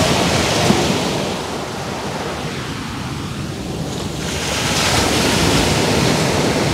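Sea surf: waves washing in, swelling near the start and again about two-thirds of the way through.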